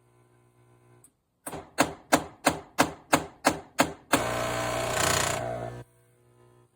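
Philips 3200 Series automatic espresso machine going through its start-up sequence: a click, then eight sharp mechanical knocks at about three a second, then a loud steady buzz for nearly two seconds that cuts off suddenly. This bang-bang-bang-buzz cycle keeps repeating on a faulty machine that leaks water and will not brew.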